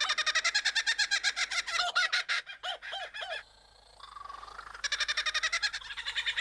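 Bird calls in the manner of a laughing kookaburra: a fast run of repeated rising-and-falling notes for about three and a half seconds, a brief quieter gap, then a second rapid run near the end.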